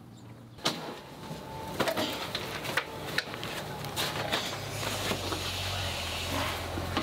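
Scattered knocks and light clatter of a metal bowl and plastic basket being handled, over a rustling noise. A low steady hum comes in about halfway.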